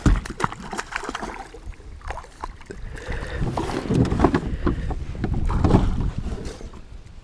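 Knocking and water splashing around a fishing kayak: a sharp knock at the start, then a run of short knocks and splashes, loudest a few seconds in.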